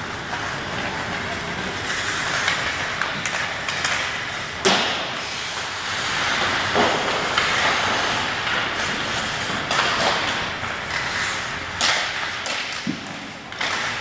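Ice hockey play heard in a rink: a steady din of skating and play, broken by several sharp knocks of sticks and puck, the loudest about five seconds in.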